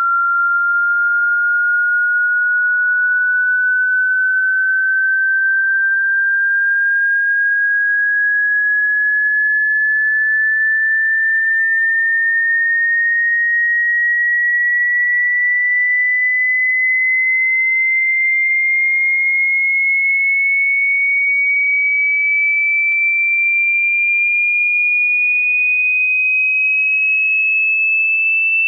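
A single pure sine test tone of a hearing-test frequency sweep, held at a constant loudness and rising slowly and steadily in pitch.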